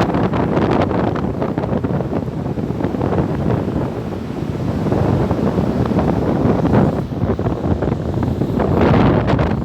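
Strong wind buffeting the microphone in irregular gusts, over the rush of surf on the shore.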